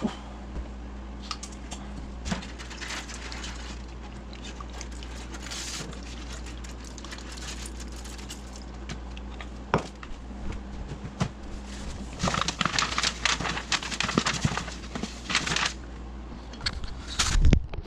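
Kitchen utensils and dishes being handled: scattered clicks, taps and scrapes, a denser run of rustling and scraping from about twelve to sixteen seconds in, and a thump near the end, over a steady low hum.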